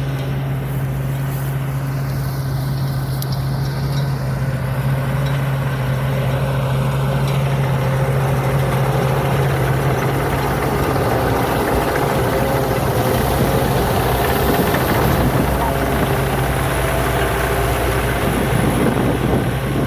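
Pornkinaree combine harvester running at work in the rice field: a steady, heavy engine hum with mechanical clatter from the machine. The sound grows a little louder and busier about halfway through.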